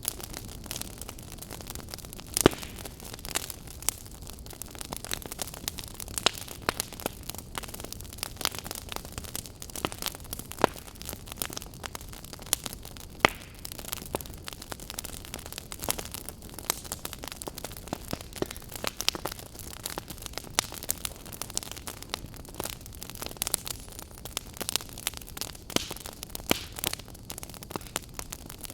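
Campfire crackling: burning wood popping and snapping at irregular moments over a steady hiss, with one sharper pop about two and a half seconds in.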